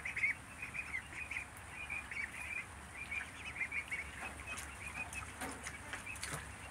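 White Layer ducklings, nearly three weeks old, peeping: a steady run of short high peeps, many close together.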